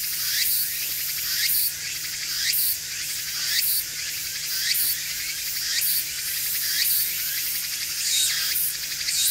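Shrill insect chorus that swells and dips about once a second, with a repeated falling note. A small bird's bathing splash sounds briefly near the end.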